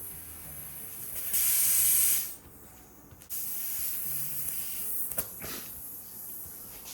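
Air hissing out of a car tire's puncture as a plug kit's reamer tool is worked into the hole. The hiss swells into a loud burst about a second in, lasting about a second, drops out abruptly, then carries on more quietly.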